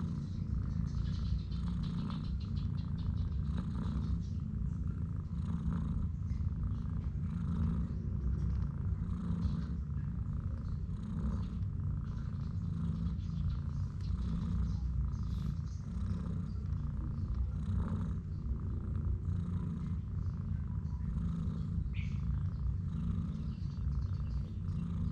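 A domestic mother cat purring steadily while nursing her newborn kittens: a continuous low purr that swells and eases every second or two.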